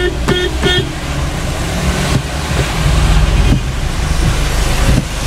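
Inside a car driving on a rain-soaked road: a steady engine hum and tyre noise on wet asphalt, swelling louder through the middle. Three short car horn toots sound in the first second.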